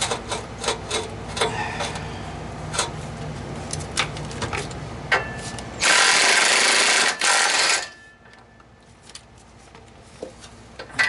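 Metal clinks and knocks from hand work on a car's exhaust pipe joint while a new catalytic converter is fitted, over a low steady hum. About six seconds in comes a loud hissing rush lasting about two seconds, with a brief break near its middle.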